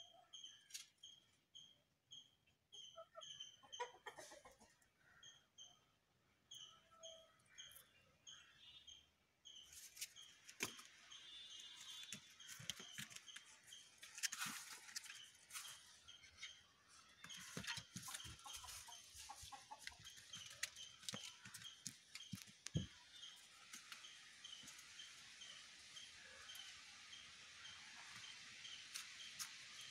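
Quiet scene: a bird in the background chirps steadily, short high chirps about two a second. There are scattered soft clicks and scuffs of the dogs moving about the wooden cage floor, and a steady hiss comes in about ten seconds in.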